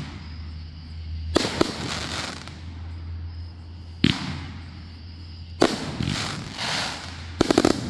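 Master 49-shot firework cake firing shot after shot, each a sharp bang followed by hissing and crackle as the stars burst. The shots come a second or two apart, and near the end several bangs fire in a quick string.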